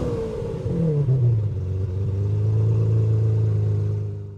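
Engine coming down from a rev and settling into a steady idle, which fades out near the end.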